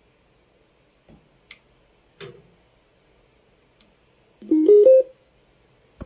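A few faint clicks of handling, then near the end a short electronic chime of three quick notes stepping upward.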